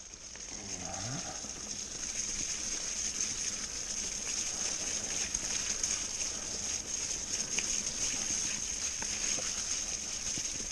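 Mountain bike tyres rolling through mud, puddles and wet leaves on a forest trail: a steady hiss of tyre noise with many small crackles and splatters.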